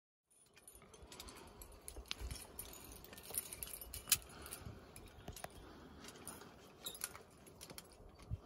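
Faint metallic clinking of climbing carabiners and quickdraws on a harness, scattered irregular clicks and jingles over a low rustle, the sharpest click about four seconds in.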